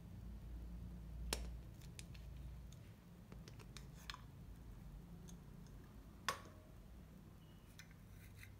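Clicks and light taps of a hard black plastic film-cartridge case being handled and pulled apart. There is a sharp click about a second in and a louder one about six seconds in, with smaller ticks between them.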